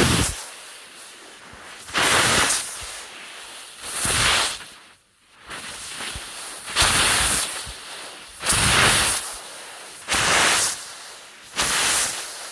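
A man imitating with his voice the exhaust chuffs of a steam locomotive pulling away. The breathy, hissing chuffs come about every two seconds and get a little faster toward the end.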